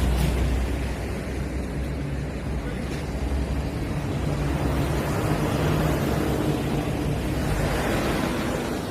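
A vehicle engine running steadily with a low rumble under a constant wind-like noise.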